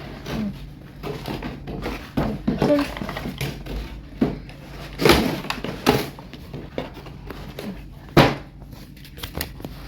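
Handling of the plastic toy and its packaging: scattered clicks, knocks and rustles, with louder thumps about five, six and eight seconds in.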